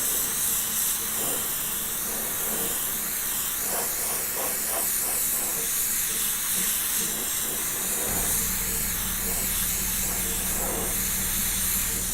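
Airbrush spraying thinned acrylic paint: a steady hiss of air. A low steady hum joins suddenly about eight seconds in.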